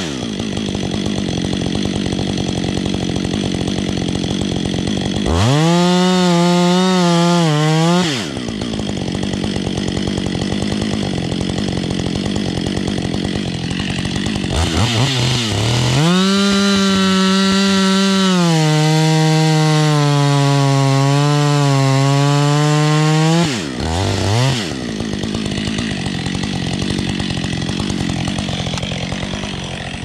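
Two-stroke chainsaw cutting into a pine trunk. Most of the time it runs at low revs, but it opens up to full throttle twice: briefly about five seconds in, and for about seven seconds from the middle on, when its pitch drops partway through as the chain bites into the wood. Near the end it revs briefly and falls back.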